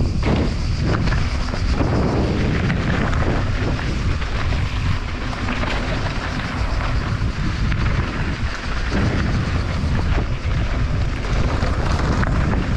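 Wind buffeting a GoPro's microphone as a mountain bike rolls fast down a loose, stony dirt trail: a continuous heavy rumble, with the tyres crunching over gravel and scattered sharp clicks and rattles from the bike.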